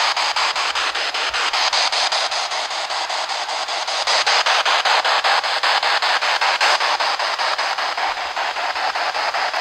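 Radio static from a receiver sweeping rapidly through stations, the way a ghost-hunting spirit box does: a steady hiss broken by quick, evenly spaced clicks, several a second.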